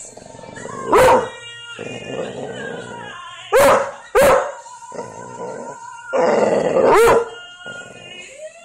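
Pit bull-type dog barking four times in loud, short barks, two of them close together in the middle, over a slow song playing in the background.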